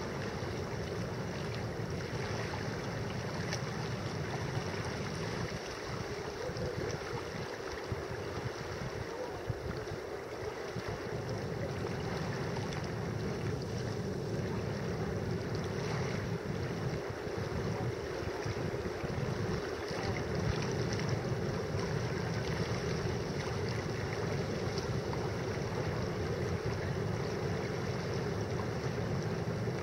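Steady wind buffeting the microphone, mixed with the wash of distant surf on the lagoon.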